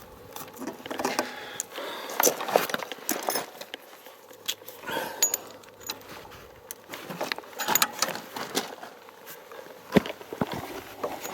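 Small metal tool parts clinking and rattling as they are handled, a string of irregular light clicks and knocks.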